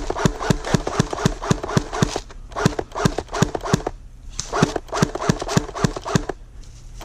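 Quick footsteps through woodland undergrowth, about four steps a second, close to the microphone, with a few short pauses.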